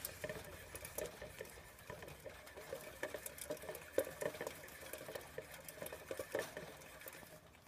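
Degu moving in a plastic exercise wheel: faint, quick, irregular pattering and clicking.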